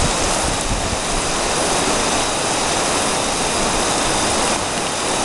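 Steady rushing of a fast-flowing river, an even wash of water noise.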